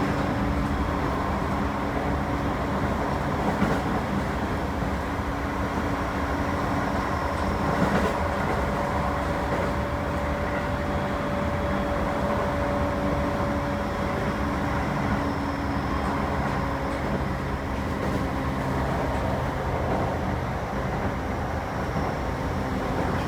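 Toei 10-300 series electric train running, heard from inside the car: steady rumble of the wheels and running gear with a motor hum under the floor. In the middle the hum holds one pitch for several seconds.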